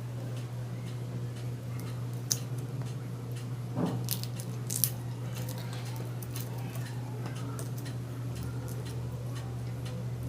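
Close-miked eating: soft squishing and small clicks of panta bhat (water-soaked rice) being mixed and eaten by hand, with a few sharper bites of fried food about two and four seconds in, over a steady low hum.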